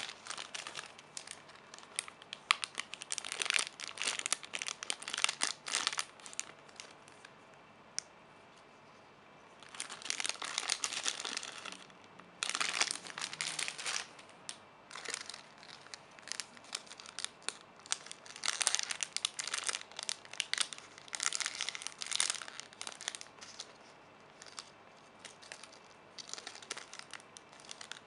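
Crinkly packaging, most likely the plastic bags that squishies come in, crinkling and rustling in irregular bursts as it is handled, with short pauses between.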